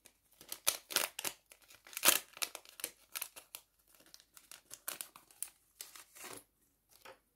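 Small jewellery packet crinkling and tearing as it is opened to take out a bracelet: irregular rustles, loudest about two seconds in.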